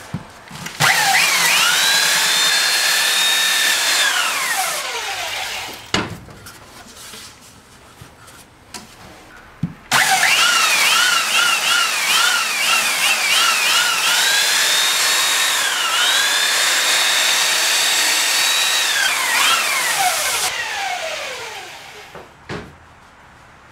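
Electric woodworking power tool run twice: the motor spins up to a steady high whine and winds down. On the second run its pitch dips repeatedly as it bogs under cuts in wood.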